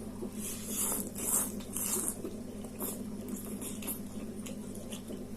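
A person slurping and chewing spicy instant noodles: a series of short, irregular wet slurps over a steady low hum.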